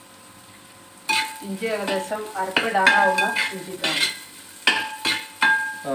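Metal spatula stirring and scraping through frying onions, green chillies and pork in a wide metal urali, with sizzling and sharp clanks of the spatula against the pan. It starts about a second in.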